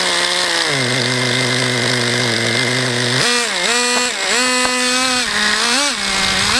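Traxxas Jato 3.3's small two-stroke nitro engine running hard. Its pitch drops a step a little under a second in, then in the second half swings down and back up several times as the throttle is let off and reapplied.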